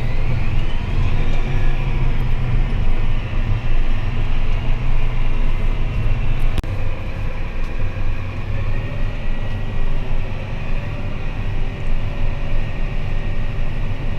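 John Deere S770 combine driving along, heard from inside the cab: a steady low engine rumble with faint whining tones above it. A single click comes about six and a half seconds in.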